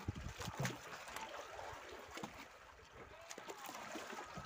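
Sea water lapping and sloshing against the hull of an outrigger fishing boat, with a few light knocks.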